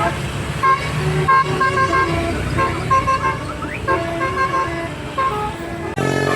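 Bus telolet horn of the basuri type playing a tooting melody of short stepped notes over the bus engine's low rumble. About six seconds in it cuts abruptly to a different horn tune.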